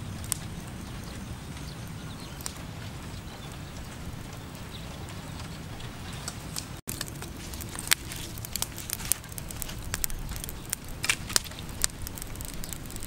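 Charcoal fire crackling under fish grilling in a bamboo rack, over a steady low rumble. After a brief break about seven seconds in, the crackles and pops come quicker and sharper.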